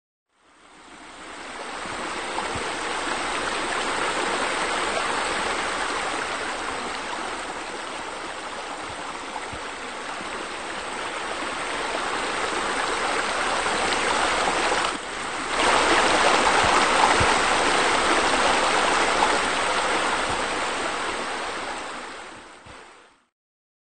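Steady rush of flowing, splashing water, fading in at the start and out near the end, with a brief dip about fifteen seconds in after which it is a little louder.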